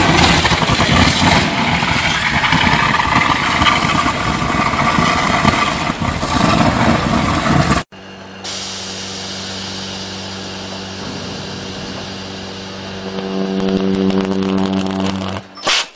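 An electric arc burns at an electric train's pantograph on the overhead line, a loud, rough, continuous buzz that cuts off suddenly about eight seconds in. Then a steady electrical hum with a buzz from a locomotive's pantograph under the catenary grows louder in the last few seconds as the contact arcs and gives off smoke.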